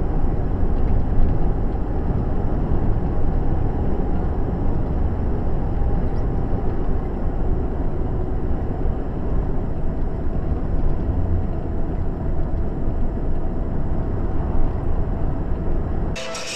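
Steady low rumble of road and engine noise inside a car cruising on a highway, picked up by the dashcam. Music cuts in near the end.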